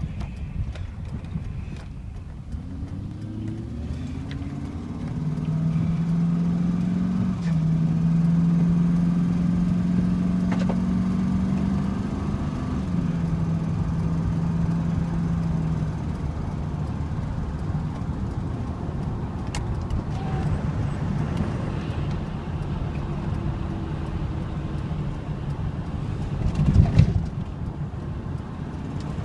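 Car engine and road noise heard from inside the cabin while driving: the engine note rises as the car accelerates, then holds a steady drone with a couple of small shifts in pitch. A brief thump comes near the end.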